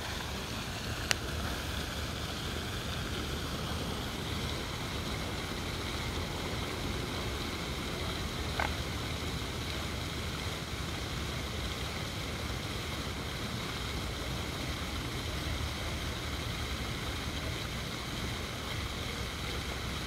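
Steady outdoor rushing noise, water from the lake's jet fountain over a low rumble, with a sharp click about a second in and another short sound about eight and a half seconds in.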